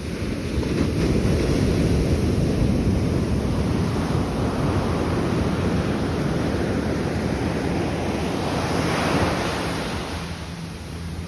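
Ocean surf, waves washing in with wind rumbling on the microphone; a wave surges louder about nine seconds in, then the sound eases off near the end.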